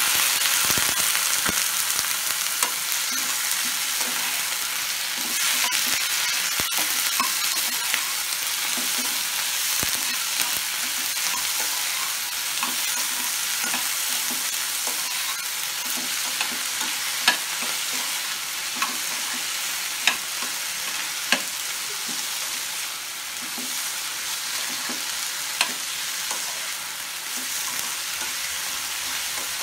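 Chopped tomatoes and sliced onions sizzling in oil in a frying pan, stirred with a metal spatula: a steady frying hiss, with a few sharp knocks of the spatula against the pan in the second half.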